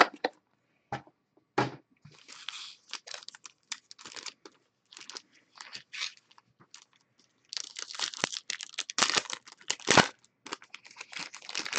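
Plastic wrappers of trading card packs crinkling and tearing as the packs are handled and ripped open, in scattered crackles that grow denser about two-thirds of the way through.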